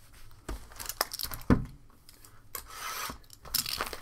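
Trading cards and pack wrappers being handled on a table: a few light clicks, a louder knock about one and a half seconds in, then about a second of crinkling wrapper noise.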